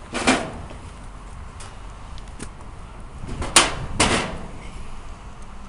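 Knocks and scuffs of a person climbing into the sheet-metal base cabinet of a stainless steel gas grill: a bump just after the start, then a sharp knock about three and a half seconds in, followed at once by another scuff.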